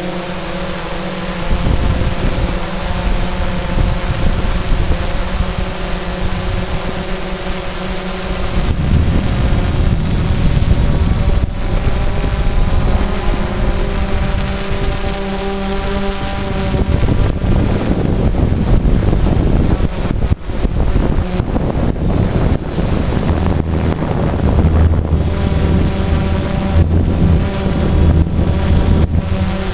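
DJI Phantom quadcopter's electric motors and propellers whirring in flight, heard from the GoPro mounted on the drone itself. The motor pitch shifts a few times as it manoeuvres, and a low rumble grows stronger in the second half.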